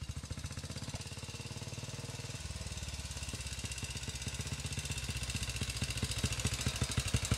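1940 BSA WM20's 500 cc single-cylinder side-valve engine running as the motorcycle is ridden, a steady beat of exhaust thumps that grows louder as it approaches. A nice sounding, typical BSA.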